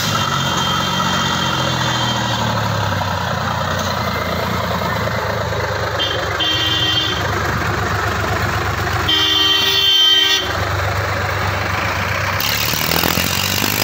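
Tractor diesel engine running steadily under load while hauling loaded trolleys. A horn sounds for over a second about nine seconds in, with shorter, fainter horn toots earlier.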